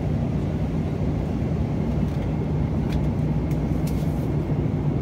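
Airliner cabin noise in flight: a steady low rumble of engines and rushing air, with a constant low hum underneath.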